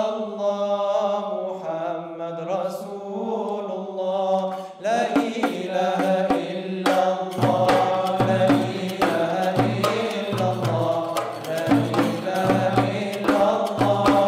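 Male vocal ensemble singing an Islamic devotional song (nasheed) in sustained harmony. About five seconds in, frame drums come in, and from about seven seconds a steady low drum beat keeps time under the voices.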